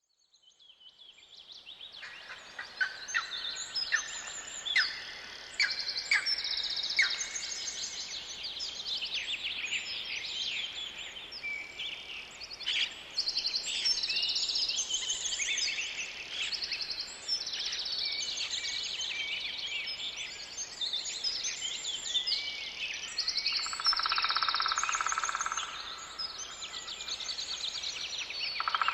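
Forest birdsong: several birds chirping and trilling at once, fading in over the first two seconds. A lower buzzing trill comes in near the end.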